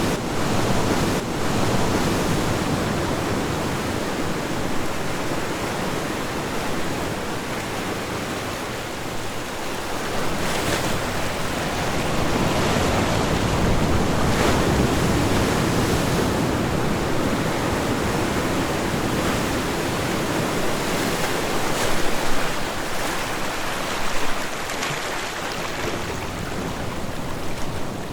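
Ocean surf: waves breaking and washing ashore in a continuous rushing wash that slowly swells and ebbs, with a couple of brief louder surges about three-quarters of the way through.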